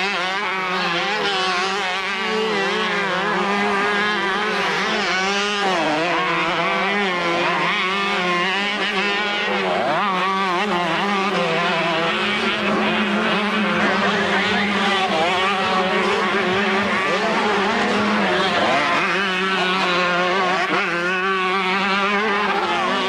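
Several two-stroke motocross bikes racing. Their engines rev up and drop back over and over, overlapping one another, over a steady low drone.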